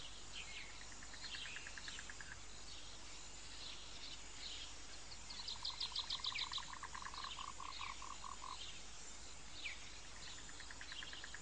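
Faint forest wildlife chorus of frogs and other small animals calling: rapid pulsed trills at several pitches, with a longer, lower trill in the middle and short falling chirps repeating throughout.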